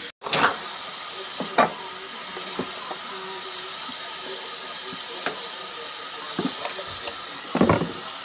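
Steady high hiss with a few light knocks and clicks as a plastic water bottle and a measuring cup are handled on a countertop and water is poured; the loudest knock comes near the end. The sound drops out for an instant at the very start.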